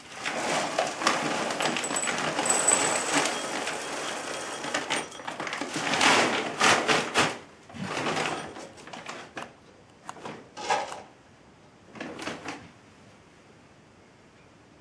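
Frozen peas poured from a bag, rattling into a ceramic bowl in a dense clatter for about seven seconds, along with the rustle of the bag. After that come a few short bursts of knocks and scrapes as a tin-can Stirling engine is handled and set down on the bowl.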